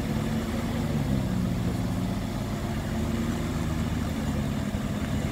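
Vehicle engines running steadily with a low drone while a van tows a 4x4 stuck in mud out on a tow strap.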